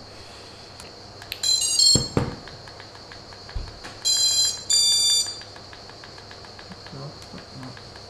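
FPV quadcopter's brushless motors sounding the ESC startup beeps once the LiPo battery is connected: a quick run of stepped tones, then two longer beeps about four seconds in, the sign that the speed controllers have powered up. A knock sounds about two seconds in.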